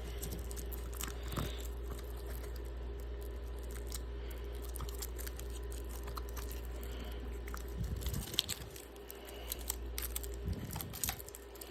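Hands handling hard plastic case pieces and packaging: scattered small clicks and light crinkling over a steady low hum.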